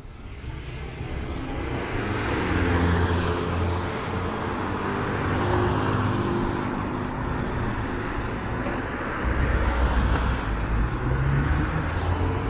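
Street traffic: a car passes with tyre hiss swelling to a peak about three seconds in and fading, over the low hum of vehicle engines that grows again in the last few seconds.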